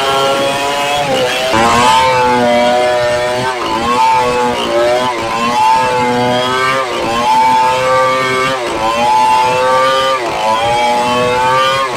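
Stihl 070 two-stroke chainsaw at full throttle, ripping a red meranti log lengthwise. The engine's pitch sags under load and picks back up about every one and a half to two seconds as the bar is pushed through the cut.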